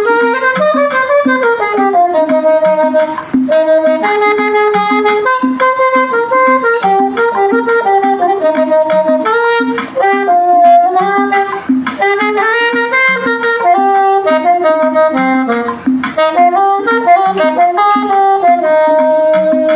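Saxophone playing a slow hymn melody, sustained and gliding notes, over a backing track with a steady rhythmic accompaniment.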